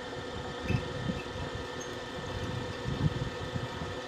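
Milling machine running steadily with a drill bit in its spindle, drilling out a stripped intake bolt hole in an aluminium motorcycle cylinder for a heli-coil insert. A constant motor hum with an uneven low rumble beneath it.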